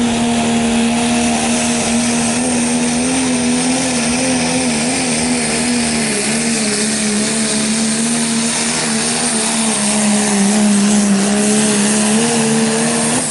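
Pro Stock diesel pickup truck engine held at high revs under full load while pulling the sled, a loud steady drone that wobbles slightly and dips a little about six seconds in, with a thin high whistle above it.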